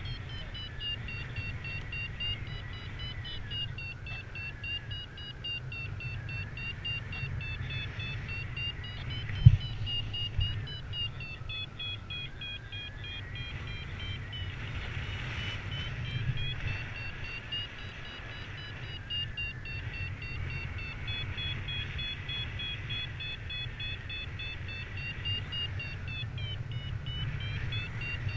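Paragliding variometer beeping rapidly, its pitch wavering slowly up and down: the climb tone that signals the glider is rising. Under it, a steady rush of wind on the microphone, and a single sharp knock about nine and a half seconds in.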